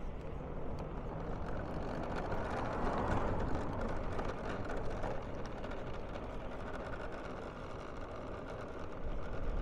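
Road and traffic noise heard from a moving car: a steady low rumble and hiss that grows louder about three seconds in and then eases off again.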